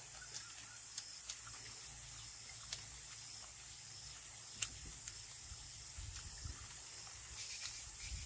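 Small clicks and mouth smacks of someone eating grilled fish by hand, over a steady high hiss. The sharpest click comes about four and a half seconds in.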